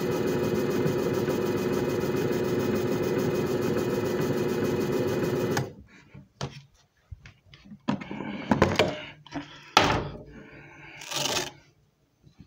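JFJ Easy Pro disc repair machine's motor running with a steady hum, cutting off suddenly about five and a half seconds in as its timed cycle ends. A few knocks and clunks follow as the machine's lid is opened.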